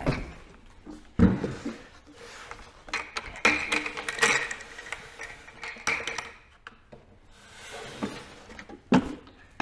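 A full plastic pail set down on a workbench with a heavy thump about a second in, then handled: its wire bail handle clinks and rattles against the pail as it is turned on the table, with another knock near the end.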